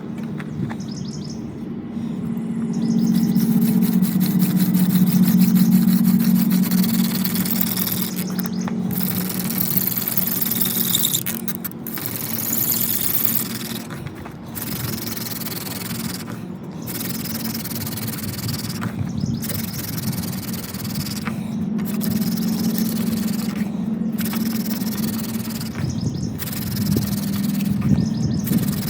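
Yucca hand-drill spindle spun between the palms into a water oak fireboard to build an ember: a continuous rasping friction hiss that stops briefly about every two and a half seconds as the hands reset to the top of the spindle. A steady low hum runs underneath.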